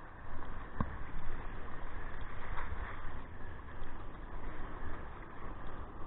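Sea surf breaking and water washing around a kayak: a steady rushing noise with a low rumble. There is a single short knock about a second in.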